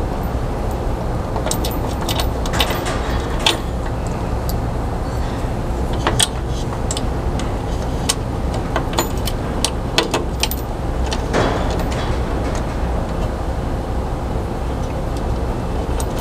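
Scattered light clicks and metal clinks of flange bolts and small hardware being fitted into a UTV door's window track, over a steady low hum.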